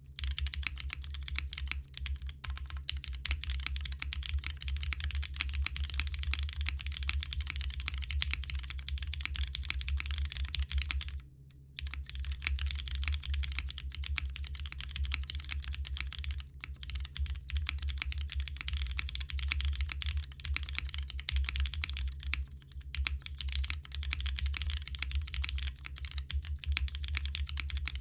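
Fast, continuous typing on a Martingale custom mechanical keyboard in a full aluminium case, with lubed Cherry MX Black linear switches on a 1.2 mm PCB and GMK keycaps: a dense stream of key clacks, with a short pause about eleven seconds in.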